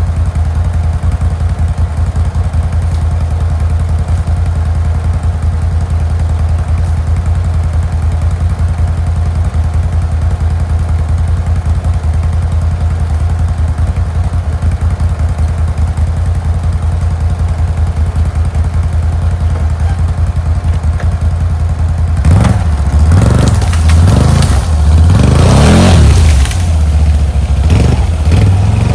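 ATV (four-wheeler) engine idling steadily, then revving up and down repeatedly from about 22 s in as it strains to pull fallen trees loose.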